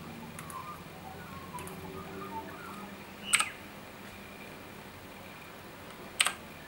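Two single sharp clicks of keys being pressed on a Razer BlackWidow Chroma mechanical keyboard, about three seconds apart, with a few faint ticks before them.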